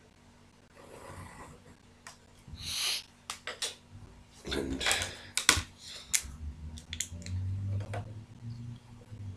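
Hand drafting at a desk: pencil strokes scraping along a plastic set square, then the set square being shifted and pens set down and picked up, making a scatter of short scrapes and sharp clicks.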